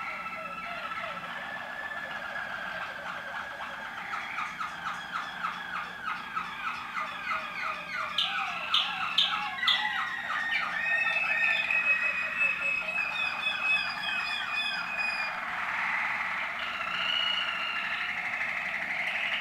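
Waterslager canary song: long runs of rapid repeated trilled notes mixed with held whistled tones, growing louder past the middle, with a few sharp clicking notes around halfway.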